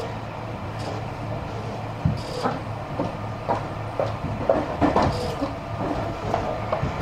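Tobu 50000 series electric commuter train running, heard from inside the passenger car: a steady low rumble and hum, with irregular knocks and rattles from the running gear and car body starting about two seconds in.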